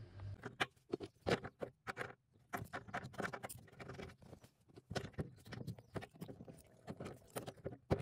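Irregular clicks, taps and rustles of hands and an adjustable spanner working on a thermostatic radiator valve, many small knocks close together.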